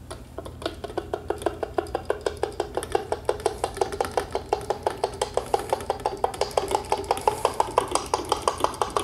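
Wine thief pumped up and down in the neck of a glass carboy of beer to draw a sample: rapid, rhythmic hollow knocking, about four a second, each knock with a short ringing tone.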